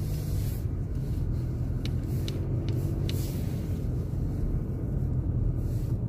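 Steady low rumble of a car's engine and tyres heard from inside the cabin while driving slowly, with a few faint light clicks about two to three seconds in.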